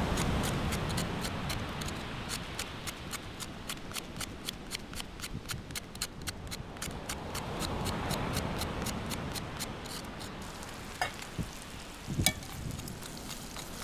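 A knife scraping the charred skin off fire-roasted tubers in quick short strokes, about four a second, which stop about ten seconds in; a few sharper knocks follow near the end.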